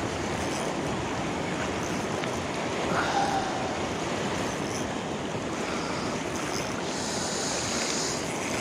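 Sea surf washing over shore rocks, a steady rushing wash.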